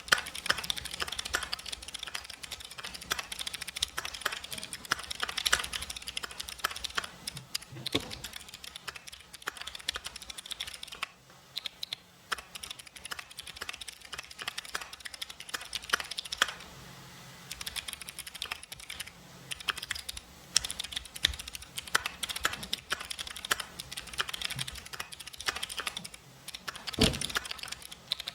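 Mechanical keyboard with jade switches being typed on in a fast, continuous clickety-clack of keystrokes. It pauses briefly twice, around eleven and seventeen seconds in, and twice gives a deeper thump.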